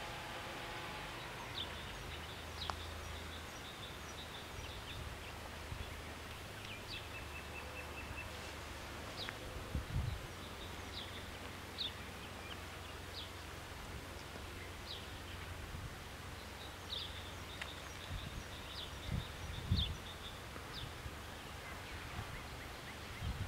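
Small birds chirping intermittently in high short calls over a steady low outdoor rumble, with a few low thumps of wind buffeting the microphone near the middle and end.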